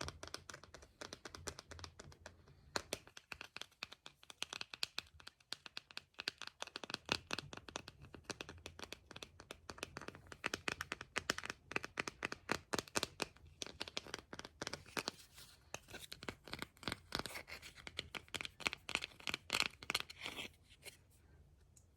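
Scratching and crackling from an object being handled by hand, made of many quick clicks packed close together. The clicks thin out a few seconds in, grow dense again around the middle, and stop shortly before the end.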